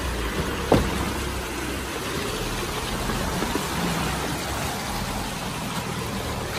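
Mahindra Bolero pickup's diesel engine running at low speed as it creeps over a muddy, rocky landslide track, with a sharp knock about a second in.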